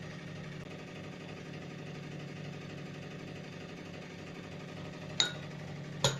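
Microwave oven running with a steady hum while a mug cake cooks. About five seconds in comes a short high beep-like click, and another sharp click near the end.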